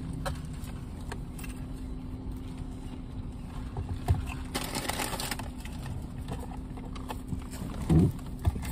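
Inside a car with the engine running: a steady low hum, with rustling about halfway through and a couple of thumps near the end as a passenger climbs into the seat with a paper food bag.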